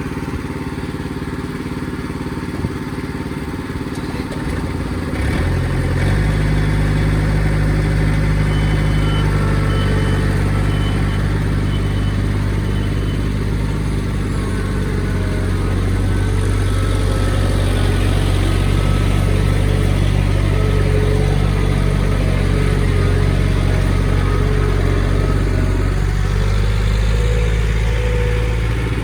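Sawmill engine running, throttled up about six seconds in and then holding a steady higher speed.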